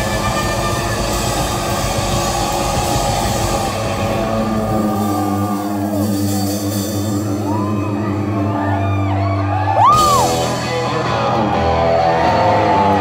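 Live rock band playing loud in a concert hall, heard from the crowd. Dense drums and guitars at first, thinning after about five seconds to held guitar and bass notes with high notes that rise and fall, and a loud crash about ten seconds in.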